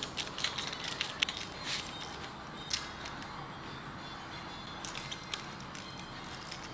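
Short metallic clicks and clinks of a hand ratchet and socket extension working the spark plugs on a small-block Chevy 350, in irregular clusters with one sharper click about two and a half seconds in.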